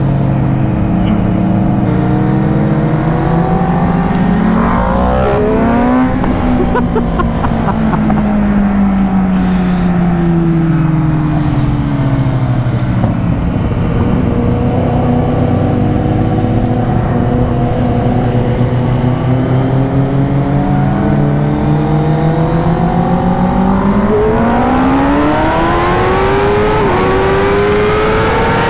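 Superbike inline-four engines at highway speed, heard from on board a Kawasaki Ninja ZX-10R riding alongside a Yamaha R1M. The engine note climbs sharply about four to six seconds in, then falls away slowly for several seconds. It climbs again in steps near the end as the bike accelerates through the gears.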